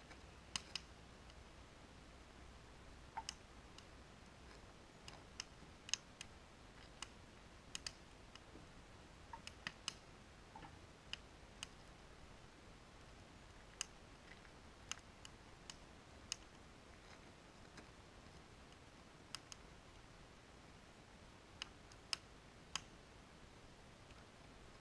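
Wood fire crackling in a steel fire ring: irregular, sharp pops and snaps, about one a second, over an otherwise near-silent background.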